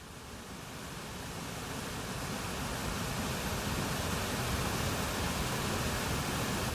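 Steady rushing roar of a waterfall, fading in over the first few seconds and then holding even.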